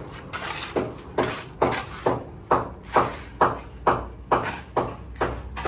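Footsteps at a steady walking pace, about two steps a second, on wet, cement-splashed ground.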